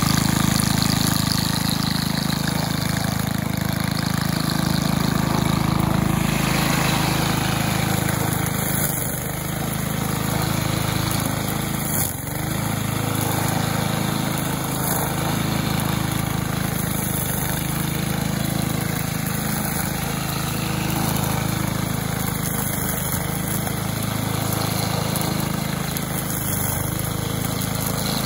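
Cub Cadet WST 100 wheeled string trimmer's 140cc single-cylinder four-stroke engine running steadily.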